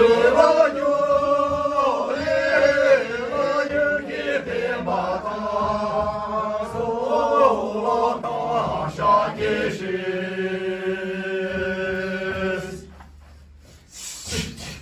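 A mixed group of Sherpa men and women singing a slow shyabru dance song together, a drawn-out chant-like melody in unison. The singing breaks off about two seconds before the end.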